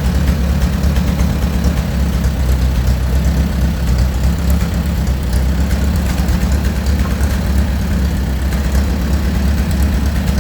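Allis-Chalmers WD-45 tractor engine running steadily at low speed as the tractor creeps forward.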